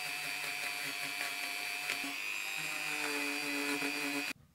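Dremel rotary tool running at speed, a steady high-pitched whine as it cleans rust off a steel stud in a warm-up regulator housing. Its pitch shifts slightly about three seconds in as the bit is pressed on, and it cuts off abruptly near the end.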